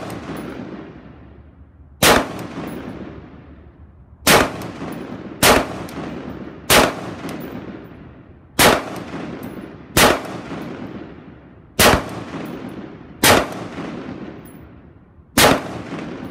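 Daniel Defense MK12 semi-automatic rifle in 5.56 NATO firing nine slow, aimed single shots, about one to two seconds apart, each sharp crack trailing off in echo.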